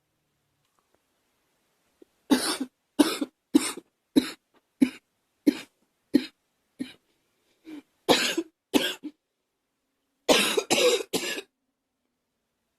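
A young woman coughing again and again: a run of short single coughs, each a second or less apart, then a quick burst of three near the end.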